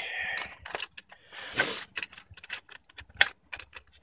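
Small steel washers and bolts clinking and rattling against each other as loose hardware is picked through, a string of irregular sharp clinks with two louder ones.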